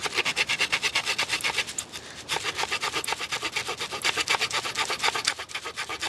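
Small saw blade of a Victorinox Swiss Army knife cutting through a hard maple branch: rapid, even back-and-forth rasping strokes, with a short pause about two seconds in.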